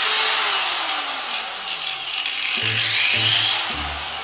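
Angle grinder cutting into a metal washer, with two louder grinding passes and the motor's pitch sagging and recovering in between; the sound stops abruptly at the end.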